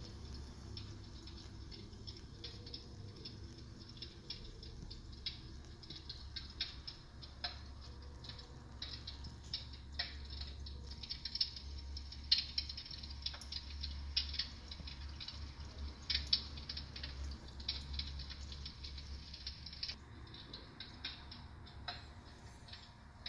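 Dimplex Cassette 500 electric fireplace playing its built-in fire sound effect: irregular crackles and pops like burning logs, over a steady low hum.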